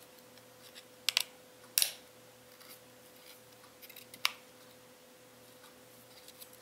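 A few short clicks and crackles from handling a card bobbin of silk stringing thread while the thread is unwound from it: three sharp ones in the first two seconds and one more just past four seconds, with small ticks between.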